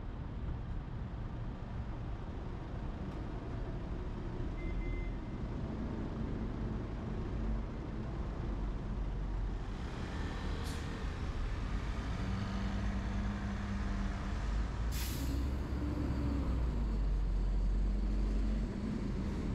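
Heavy road traffic with a large vehicle's engine running close by, growing louder in the second half. Air brakes hiss twice, briefly and sharply, about ten and fifteen seconds in.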